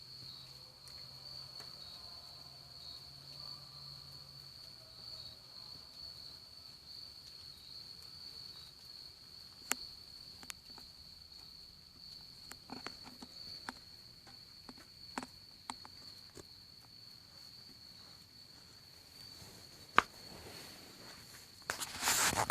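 Night insect chorus: a steady, unbroken high-pitched trill at one pitch from crickets in the woods. Scattered sharp clicks break in from about halfway, with one loud click near the end and a short burst of rustling just before the end.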